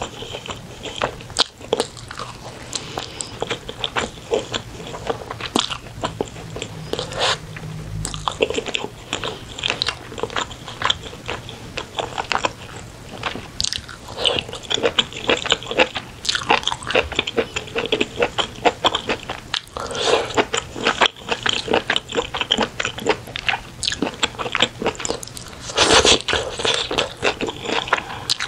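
Close-miked eating: biting into and chewing spicy braised chicken by hand, a dense run of wet mouth clicks and smacks with a louder bite near the end.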